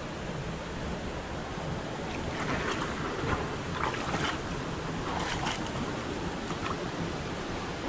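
River water flowing and splashing among boulders close to the microphone, with a few louder splashes in the middle.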